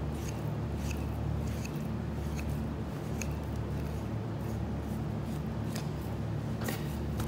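Butcher's knife trimming beef flat iron steaks on a cutting board: a scatter of faint short clicks and scrapes from the blade and handling. A steady low hum runs underneath throughout.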